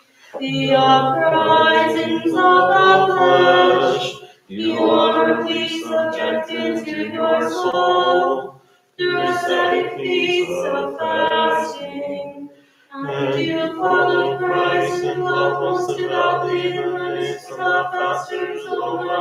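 Unaccompanied voices singing a liturgical hymn in church chant, in four phrases with short breaks between them.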